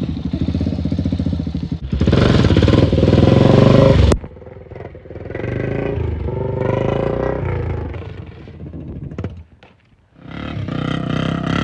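ATV engine revving and running under load in several short clips cut together. It is loudest from about two to four seconds in and cuts off sharply there, drops out briefly to near silence, then picks up again near the end.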